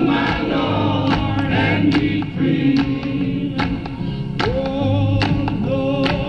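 Archival 1968 outdoor field recording of a group sing-along: a male leader and a crowd singing a gospel-style song together, with sharp hits keeping time.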